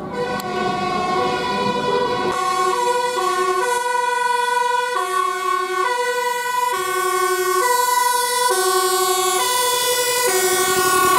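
Dutch fire engine's two-tone siren sounding loudly, switching back and forth between a high and a low note every second or so.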